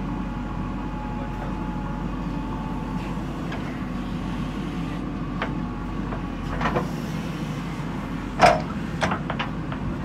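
JCB 3DX backhoe loader's diesel engine running steadily under load as the backhoe lifts and swings a bucket of soil over to a tipper truck and back. Short knocks and clanks come in the second half, the loudest a single sharp clank about eight and a half seconds in.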